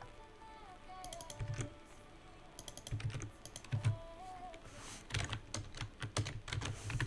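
Typing on a computer keyboard in short bursts of keystrokes, busiest in the last two seconds.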